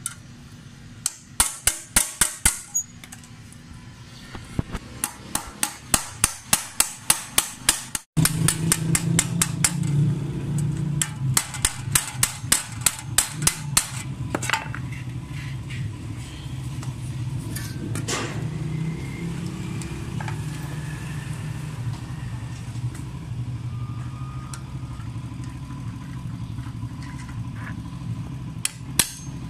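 Hammer tapping on the metal hub and spider arms of a pedestal fan's blade assembly, partly through a steel tube and a punch, while straightening the blades. The taps come in quick runs of several a second, then thin out after about fourteen seconds. A steady low hum sits underneath from about eight seconds in.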